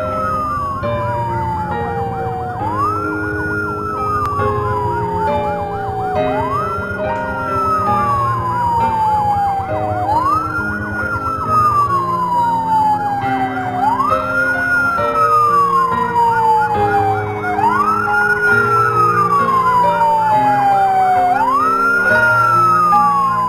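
Ambulance siren wailing: each cycle rises quickly and falls slowly, repeating about every four seconds. It gets a little louder toward the end. Steady background music with sustained notes plays underneath.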